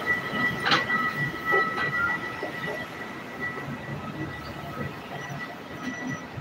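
Train noise on an elevated rapid-transit platform: a steady high whine over a rumbling background, louder in the first two seconds, with one sharp clank just under a second in.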